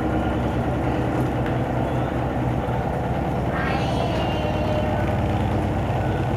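Electrolux LTE12 12 kg washing machine running with a steady low mechanical hum. About three and a half seconds in, a brief higher-pitched sound rises over it for under a second.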